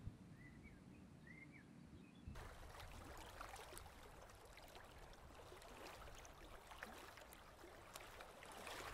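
Faint water lapping and gurgling with small ticks and splashes, starting abruptly about two seconds in and rising slightly near the end. Before that, a few faint bird chirps over a low outdoor hum.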